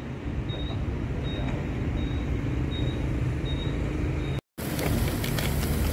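Steady low rumble of motor traffic, with a faint high chirp repeating about every three-quarters of a second. The sound cuts out for a moment about four and a half seconds in.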